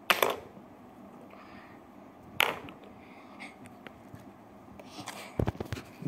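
Camera handling noise: a few low knocks and bumps near the end as the camera is picked up and covered, after two short, sharp rustles earlier on.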